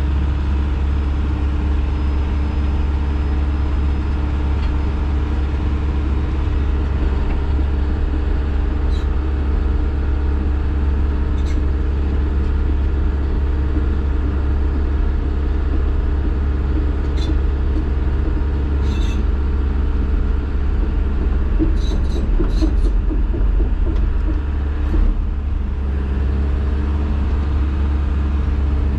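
Hydraulic excavator's diesel engine running with a steady low hum, heard from inside the operator's cab as the machine is worked. A few light sharp clicks come through over it, and it gets a little louder for a few seconds past the middle.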